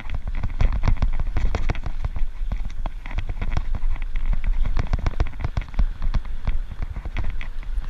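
Bicycle riding over a rough dirt road: a dense, irregular crackle and rattle of tyres on gravel and the bike jolting over bumps, over a steady low rumble of wind on the microphone.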